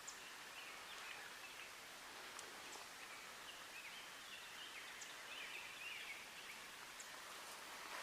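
Faint bird calls over a quiet, steady outdoor hiss, clearest through the middle, with a few tiny clicks.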